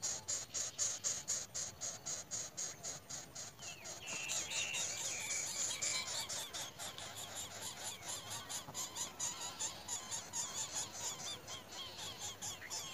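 High-pitched animal squeaking and chirping: a fast even pulsing of about four beats a second at first, then from about four seconds in many short squeaky notes sliding up and down.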